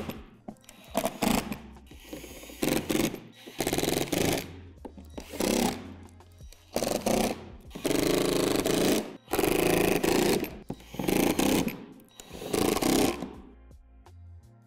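Cordless drill/driver driving screws in about a dozen short runs, fastening a window pane to a shed door panel, with background music underneath. The runs stop shortly before the end.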